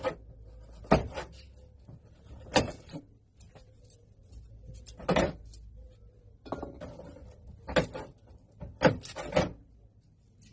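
A series of sharp knocks and clunks, about seven in all and unevenly spaced, as objects are set down or handled, over a low steady hum.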